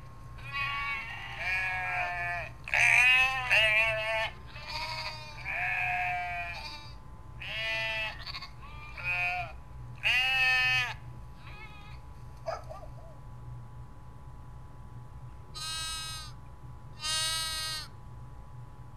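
Sheep bleating: several animals call one after another at different pitches, each call quavering, for the first eleven seconds or so. After a pause, two more bleats come near the end.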